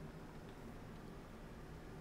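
Quiet room tone: a low steady hum, with a faint tick about half a second in.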